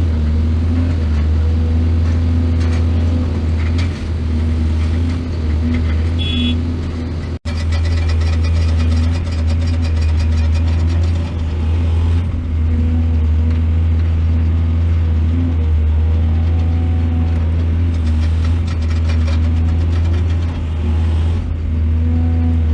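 Heavy diesel engine of a mining excavator running steadily under load, a deep continuous drone. It cuts out for an instant about seven seconds in, then comes back with a few seconds of rapid metallic rattling.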